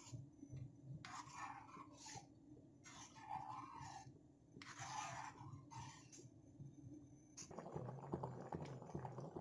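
Metal ladle stirring a thick leafy chicken curry in a steel pan, with a handful of separate soft scrapes and sloshes. About seven seconds in, a steady bubbling hiss starts as the curry boils hard.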